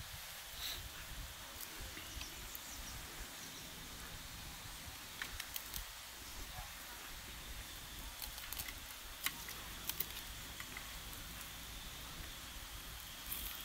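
Quiet outdoor background hiss with a few sharp clicks and taps scattered through, the loudest two about two-thirds of the way in.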